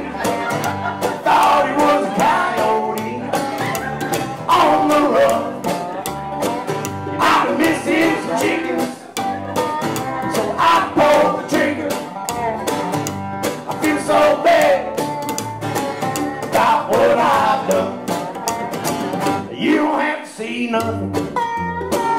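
Acoustic string band playing a country-bluegrass song: strummed and picked acoustic guitars over a plucked upright bass.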